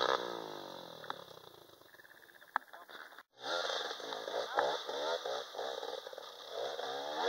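Dirt bike engines revving in repeated rising and falling surges as the bikes climb a steep, muddy hill trail. The sound drops out completely for a moment about three seconds in, then the revving resumes.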